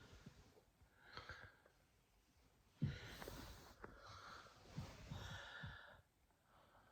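A person with hiccups breathing audibly: a short faint breath about a second in, then a longer breath from about three to six seconds in, starting sharply.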